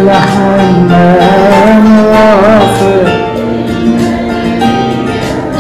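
A man singing an Arabic Christian hymn over instrumental accompaniment, drawing out the word 'al-hanan' ('the tender') on long held notes that waver in pitch midway.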